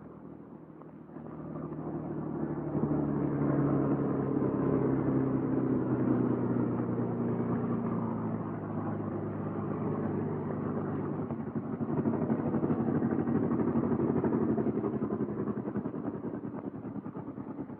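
Bell P-39 Airacobra's Allison V-12 engine running at low taxiing throttle, a steady low drone that swells about a second in and eases off near the end.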